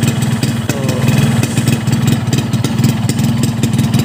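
Two-stroke motorcycle engine idling steadily from a cold start, with a fast even pulse from its Boban C33 aftermarket exhaust, on a rich (wet) carburettor setting. The engine and exhaust note sound normal, neither muffled nor dry.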